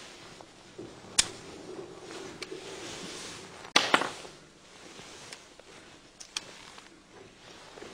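Sharp clicks and knocks of brass revolver cartridges and their cardboard box being handled and set down on a wooden table: one loud click about a second in, a quick double click near the middle, and a few lighter taps after.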